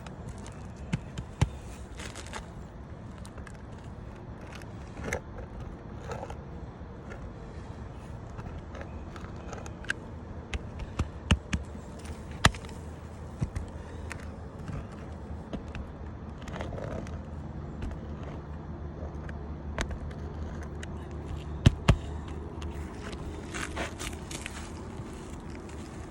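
Scattered sharp knocks and scrapes from work on a shingle roof, with a low steady hum coming in after about sixteen seconds.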